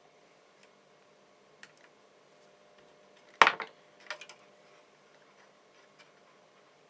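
Small tools and parts handled on a soldering workbench: scattered faint clicks, one sharp knock about halfway through, then a quick run of three or four lighter taps.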